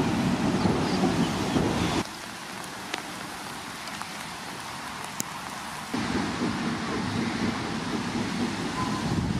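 Steady outdoor rain and wind noise with a low rumble, which drops abruptly to a quieter, thinner hiss about two seconds in and comes back just as abruptly about six seconds in.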